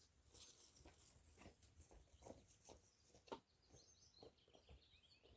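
Near silence outdoors, with faint bird chirps and scattered soft clicks and knocks.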